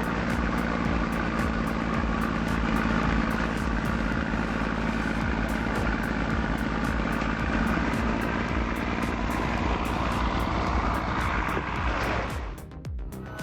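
Heavy machine's engine running steadily under load, with a constant low hum; it cuts away about twelve and a half seconds in.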